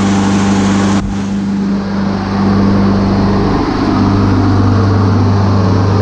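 Lawn mower engine running steadily with its freshly sharpened blade refitted, without vibrating. A short click about a second in.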